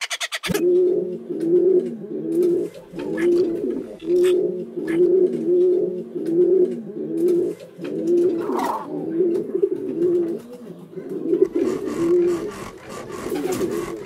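Rock pigeons cooing in a steady run of low coos, about two a second, as in courtship. A few faint clicks sit between the coos, and a brief higher call cuts in about eight and a half seconds in.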